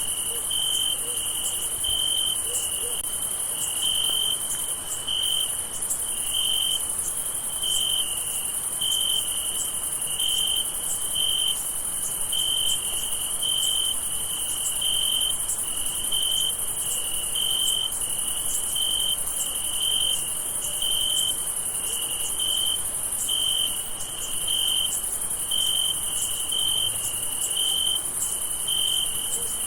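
Night chorus of crickets: one chirping at an even pace, about three chirps every two seconds, over a steady high-pitched insect trill.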